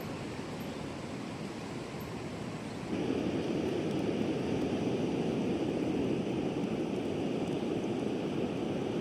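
Steady rush of strong wind and sea surf, with no engine or voice, growing abruptly louder about three seconds in.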